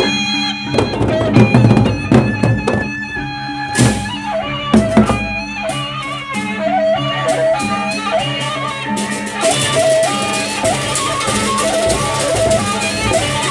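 Gendang beleq ensemble playing: a held drone and a wavering melody line over heavy drum strokes that come in about a second in, with cymbals clashing continuously from about ten seconds in.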